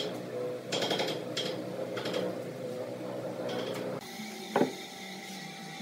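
A few short knocks and rattles of wood being handled on a wooden workbench, with one sharper, louder knock about four and a half seconds in.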